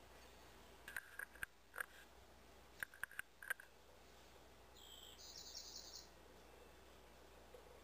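Steller's jay pecking at suet through a wire suet cage: two quick runs of sharp taps, about a second in and again about three seconds in. About five seconds in, a faint, high, rapidly repeated bird call lasts about a second.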